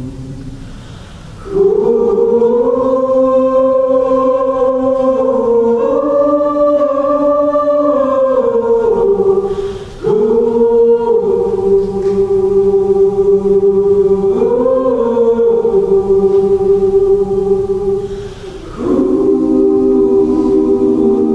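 Mixed choir of men's and women's voices singing slow, sustained chords in long phrases, with brief breaks for breath about ten and eighteen seconds in.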